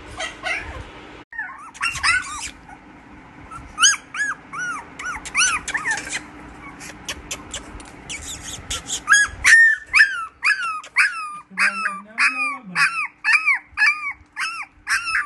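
Young puppies whimpering and yipping in short, high cries that rise and fall. The cries are scattered at first, then come about two a second and louder from about nine seconds in.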